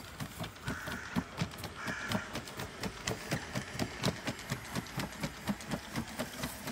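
BAT-1 quadruped robot dog walking through grassy undergrowth: quick, even footfalls with rustling, about four to five a second. A brief high motor whine sounds twice in the first couple of seconds.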